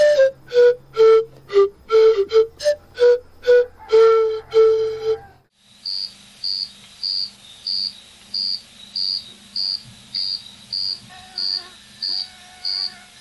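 A chant-like melody of short repeated notes, continuing the singing heard just before, ends about five seconds in. Then an insect, cricket-like, chirps with a short high note about every 0.6 s.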